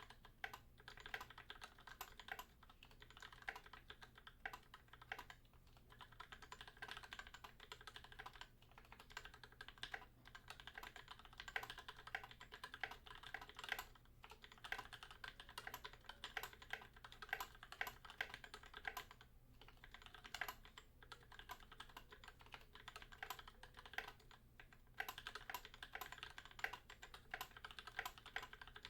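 Steady fast typing on an Idobao ID80 mechanical keyboard with a foam-filled case and lubed Pillow switches (Gateron Yellow housings and springs with UHMWPE stems), under NK_ x Tai-Hao Cubic keycaps. The keystrokes run in a continuous stream, broken by a couple of brief pauses.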